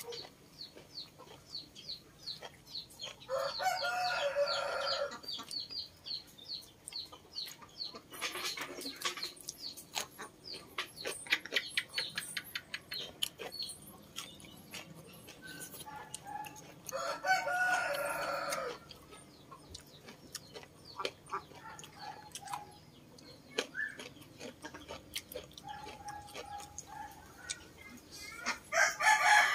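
A rooster crows three times, about 4 s in, about 17 s in and near the end, each crow lasting about two seconds. Between the crows come close, wet clicks and smacks of chewing and eating.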